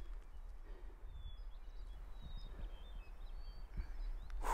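Quiet mountain-forest ambience: a steady low wind rumble on the microphone with faint, short high bird chirps scattered throughout. A brief rush of noise comes right at the end.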